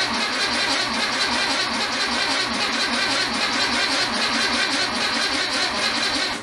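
Starter cranking the 1964 VW Beetle's 1500cc air-cooled flat-four with a steady, rhythmic churn, the engine not catching, then stopping abruptly at the very end. The owner puts the slow start down to fuel taking a long time to reach the carburettor from the front tank.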